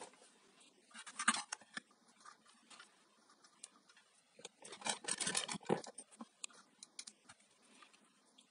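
Light clicks, taps and rustling of hands handling the power cord and wires at an electric hob's terminal block, in two clusters about a second in and around five seconds in.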